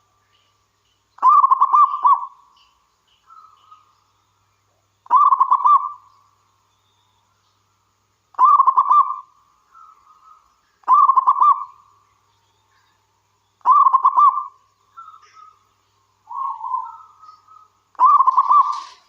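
Zebra dove (perkutut) singing its stuttering, rolling coo. Six loud phrases of about a second each come roughly every three seconds, with softer single coos in between.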